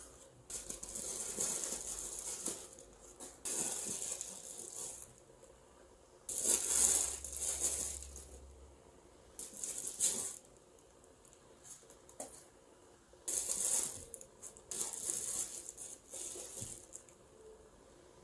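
Tissue paper rustling and crinkling in bursts of a second or two as small painted wooden blocks are unwrapped, with a few light knocks of wood set down between them.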